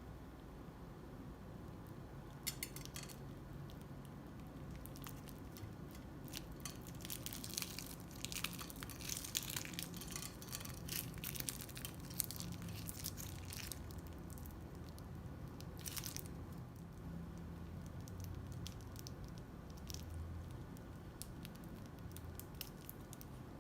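Crunchy slime being squeezed and worked by hand, squishing with bursts of crackling clicks that are densest in the middle.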